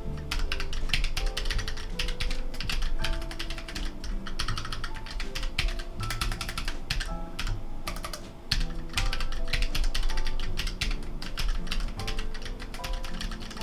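Rapid, continuous typing on a Keychron K3 low-profile mechanical keyboard with brown switches: a fast, uneven patter of key clicks.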